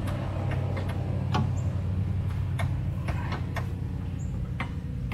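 Scattered light clicks and taps as the sway bar and its end-link hardware are handled and shifted into alignment, irregular and about ten in all. A steady low hum runs underneath.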